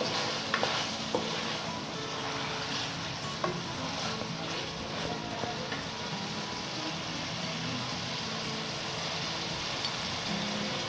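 Minced meat (keema) sizzling in oil in a steel wok while it is stirred with a wooden spatula. There is a steady frying hiss and a few sharp clicks of the spatula against the pan in the first few seconds.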